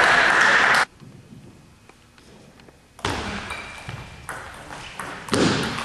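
Table tennis rally: the ball clicks sharply off the rackets and the table about every half second, starting about three seconds in. Before that, loud voices cut off abruptly about a second in.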